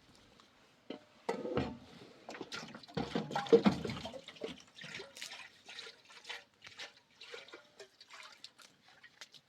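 Water splashing and sloshing, loudest in two stretches about a second in and around three to four seconds in, among scattered small knocks and clatters.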